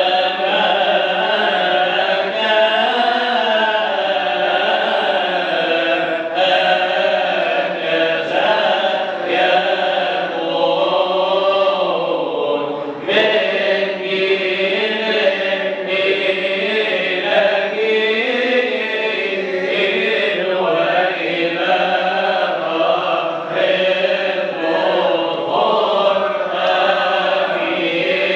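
Coptic Orthodox liturgical chant: a man's voice singing a slow, winding melody, unaccompanied, with long held and ornamented notes.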